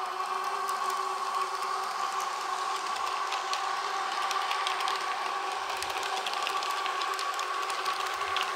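H0-scale model of a DB class 420 S-Bahn train running on the layout: a steady whine, with many small clicks of the wheels on the track.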